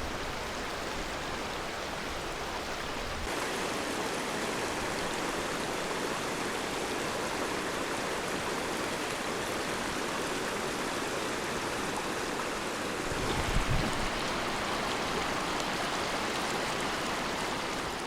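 Stream water rushing over rocks as a steady hiss, with a brief low rumble about thirteen seconds in.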